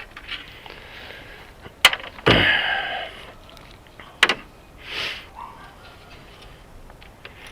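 Hand tools knocking and scraping on metal engine parts: two sharp clicks, a louder rattling scrape just after two seconds, and a short hiss about five seconds in.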